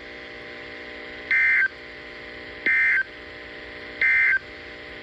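Three short bursts of the NOAA Weather Radio EAS/SAME digital data tone, the end-of-message code that closes the weekly test. Each burst lasts under half a second and they come about 1.3 seconds apart, over a low steady hum.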